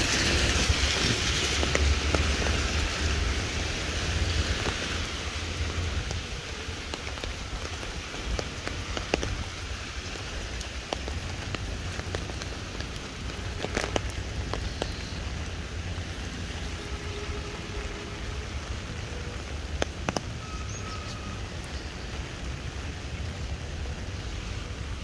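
Steady rain falling on wet paving and road, a little louder in the first few seconds, with occasional sharp ticks of drips.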